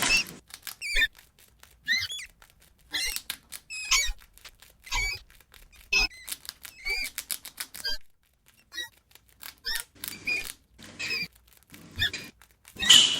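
Rats squeaking: short high chirps that bend in pitch, in scattered bursts with sharp clicks between them, with a lull about eight seconds in.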